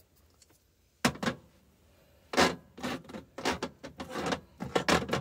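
Spice jars being handled on a kitchen counter and shelf: a sharp knock about a second in, then a run of clicks, knocks and small rattles as a jar is capped, set down and another is taken up.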